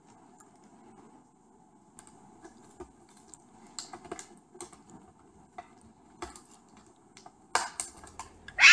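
An African grey parrot's beak pecking and tapping at a plastic yogurt tub on a wooden table: irregular light clicks that come more often towards the end, where a few louder knocks cluster.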